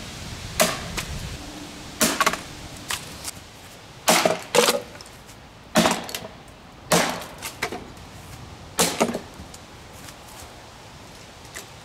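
Golf iron smashing a small RCA surround-sound speaker cabinet: about ten hard cracking hits, some in quick pairs, a second or two apart, as the box breaks apart.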